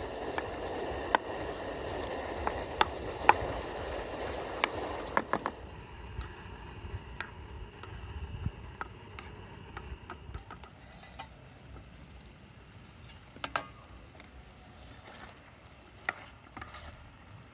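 Chicken frying in mustard oil in a pan, sizzling with sharp spattering pops. About five seconds in the sizzle drops off sharply, leaving a faint crackle and occasional ticks.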